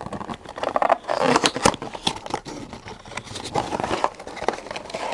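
Cardboard packaging rustling and crinkling as a tablet box's accessory compartment is opened and its cables and charger are taken out, with many irregular clicks and scrapes.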